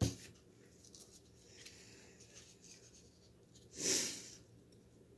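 Faint rustle and crinkle of paper petals being folded and pressed together by hand. There is a sharp click at the very start and a brief, louder rush of noise about four seconds in.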